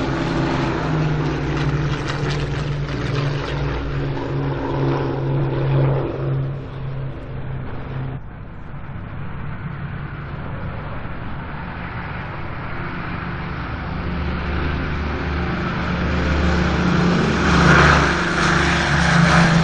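Heinkel He 111 bombers' twin propeller engines droning during take-off: one aircraft's steady engine note fades away, and after an abrupt change about eight seconds in, another builds up and grows loud near the end. Scratchy old wartime field recording.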